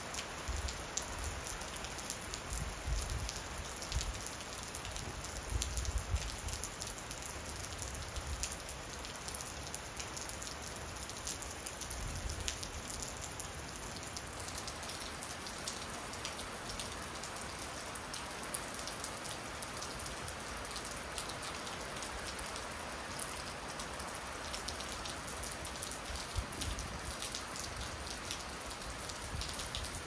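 Steady rain falling, an even hiss with sharp taps of individual drops landing close by.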